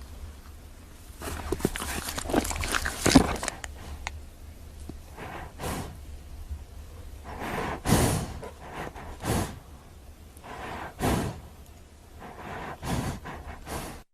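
Horses breathing and blowing through the nostrils in several short noisy bursts, over some knocking and rustling in the first few seconds.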